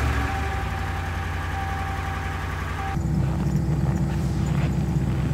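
Pickup truck engine idling steadily, a low even hum whose tone shifts abruptly about three seconds in.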